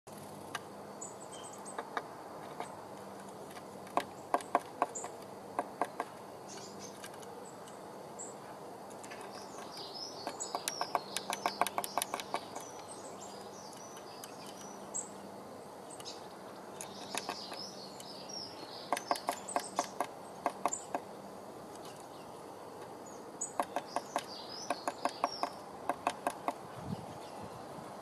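Blue tit pecking at the wooden entrance hole of a nest box: quick runs of sharp taps of beak on soft timber, a burst every few seconds, chipping the hole wider. Small birds chirp in the background.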